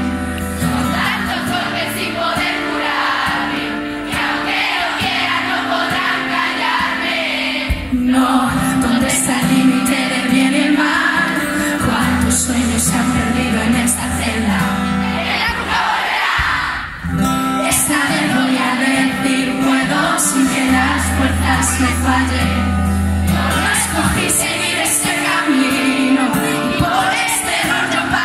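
Live pop song through a PA, heard from the audience: female lead vocal over guitar and a heavy bass backing, with a brief drop in level about halfway through.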